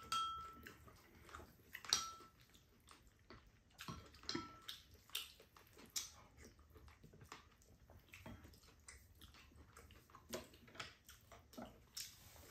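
Spoons and chopsticks scraping and clicking against ceramic bowls, a few clinks ringing briefly, the loudest about two seconds in, with quiet chewing and slurping of bean sprout rice.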